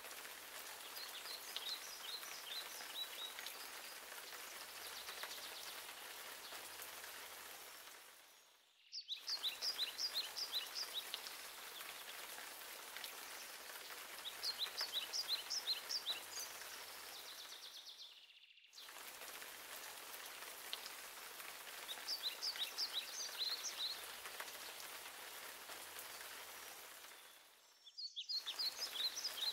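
Steady patter of rain, with a songbird singing a short run of quick high notes every few seconds. The sound fades out briefly three times.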